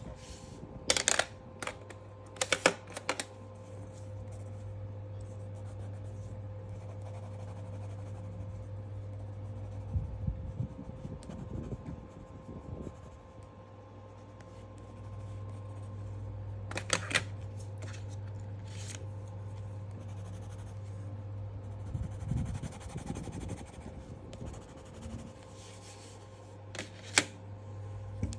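A steady low hum with a few short, sharp clicks and taps: a pair near the start, two more in the middle, one near the end.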